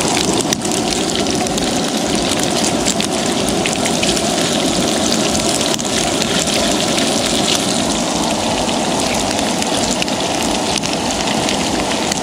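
Steady, loud rush of water with a fine pattering texture throughout.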